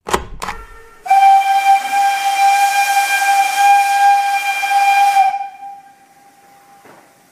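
Two sharp knocks, then a steam whistle blowing with a loud hiss, one steady note held for about four seconds. The hiss cuts off suddenly and the note fades away.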